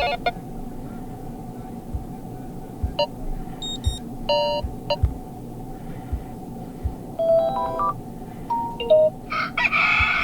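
Oukitel K13 Pro smartphone alarm tones previewed one after another through the phone's speaker. Each plays only briefly, as short melodic snippets with gaps between them, over a faint steady hum and a few soft low knocks.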